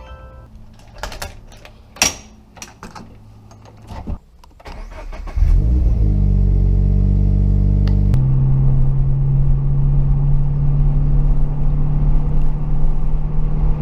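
A few clicks and knocks, then a vehicle engine starts about five seconds in and settles into a steady, loud idle, its note changing once a few seconds later.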